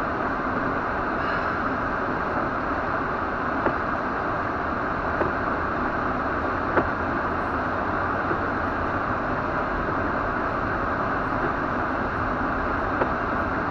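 Steady road and wind noise inside a moving car's cabin, with a few faint sharp ticks now and then.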